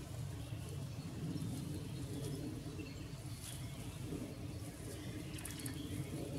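Steady low rumble of outdoor background noise, with faint scattered rustles and clicks.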